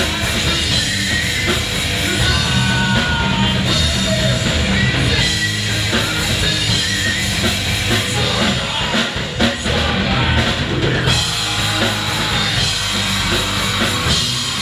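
Live metal band playing loud: a pounding drum kit and distorted electric guitar, with a vocalist singing into a microphone.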